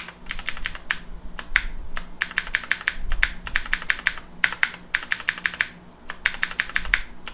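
Keys of a Kemove 60% mechanical keyboard being pressed in quick runs, like typing: bursts of sharp clicks, several a second, with short pauses between the runs.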